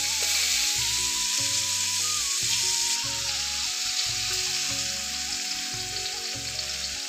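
Hot oil sizzling steadily as food fries in a pan.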